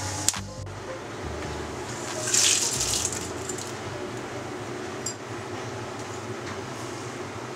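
Hot oil tempering of dals, mustard seeds, cashews, curry leaves and chillies sizzling steadily. About two seconds in there is a louder, hissier burst of sizzling as the hot tempering is poured onto the cool curd rice.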